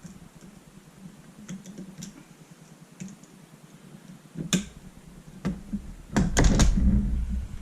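Small clicks and taps of parts being handled as a retaining pin is worked out of a Spyder paintball marker, with one sharp click about four and a half seconds in and a quick run of clicks and handling knocks near the end.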